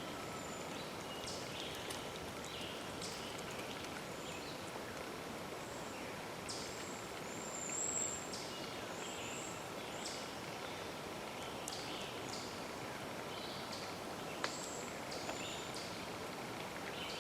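Birds chirping and whistling in short high calls over a steady outdoor hiss, with a high whistled call about halfway through and a single sharp click near the end.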